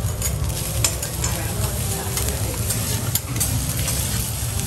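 Fried rice and butter sizzling on a teppanyaki griddle while metal spatulas scrape and tap against the hot steel plate, with frequent short scrapes over a steady low hum.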